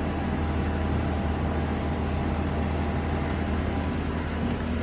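Steady street traffic noise: a continuous low rumble with an even hiss over it.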